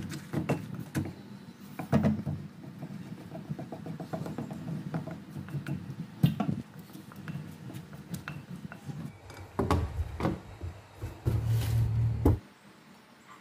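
Plastic spoon and pestle tossing bamboo-shoot salad in a clay mortar: repeated knocks and scrapes against the mortar's sides. A low hum starts near the end and cuts off suddenly.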